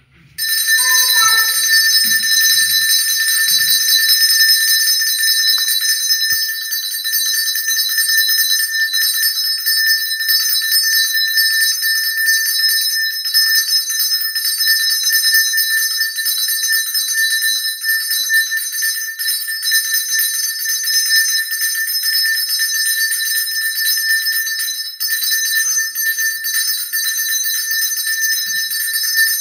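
Small altar bells (Sanctus bells) shaken without a break to mark the blessing with the Blessed Sacrament: a bright, steady jingle of several high ringing tones that starts about half a second in.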